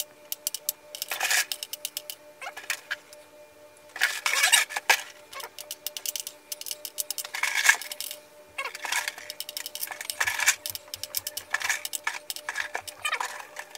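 M&M's candies clicking and rattling against each other and a glass jar as they are counted out by hand, in scattered clicks with louder rattling handfuls every few seconds.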